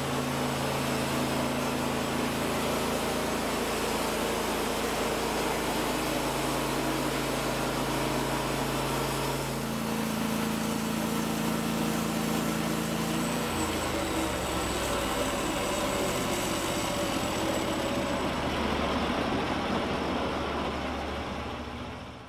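Gasoline engine of a Norwood LumberMate LM29 portable band sawmill running steadily while the mill head is pushed along a log, sawing lumber. The engine note shifts twice partway through, and the sound fades out near the end.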